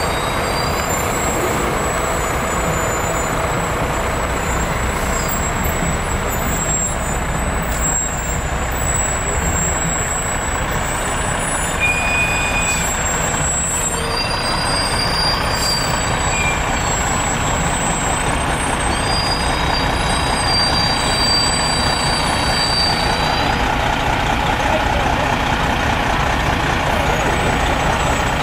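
Fire trucks rolling slowly past in a parade line, their engines running under a steady, dense wash of noise.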